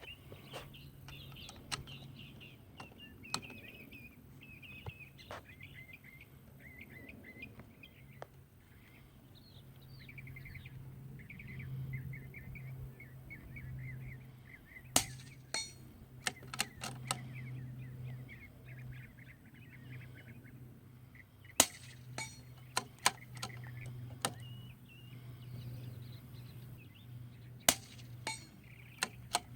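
Three suppressed shots from an Anschutz 1712 .22LR bolt-action rifle with an AAC Element 2 suppressor, firing GemTech subsonic ammunition, about six seconds apart. Each shot is a sharp, quiet crack followed by a few lighter clicks of the bolt being worked. Birds chirp throughout, over a steady low hum.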